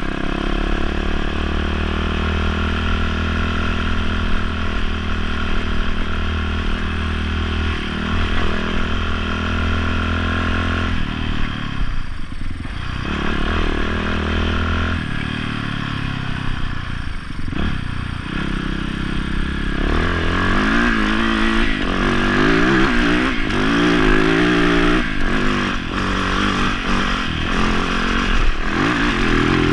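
Dirt bike engine running under changing throttle on a rough trail, its pitch shifting with gear and throttle changes and easing off briefly near the middle. In the last third it works harder and runs higher-pitched as the bike climbs a rocky slope.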